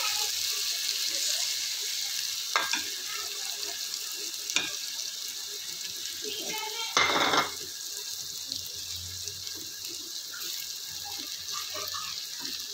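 Diced vegetables and beaten egg sizzling steadily in a hot aluminium pan, with a few sharp knocks. The loudest knock comes about seven seconds in.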